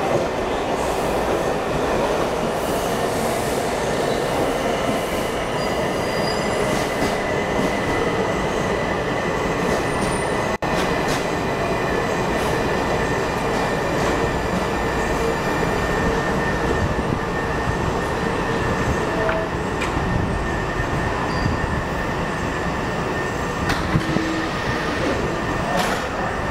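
Washington Metro railcars moving along the platform, a steady rumble of wheels on rail with a thin high squeal held over it. The train comes to a stand with its doors open.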